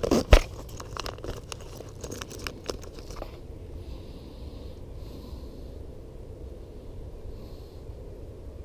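Zipper on a soft fabric tackle binder case being zipped shut: a quick run of small rasping clicks with one sharp knock near the start, stopping about three seconds in.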